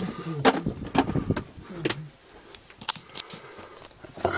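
Loose bricks clinking and scraping in sharp, scattered knocks as someone crawls over rubble in a narrow brick tunnel, with a brief murmured voice in the first two seconds.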